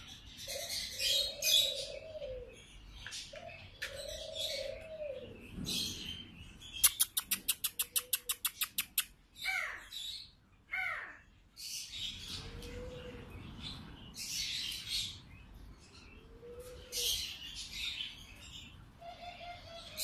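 A mixed chorus of many captive birds calling together. Rasping high calls and low arching calls overlap, with a rapid run of about ten clicks a second partway through and a pair of falling whistles just after.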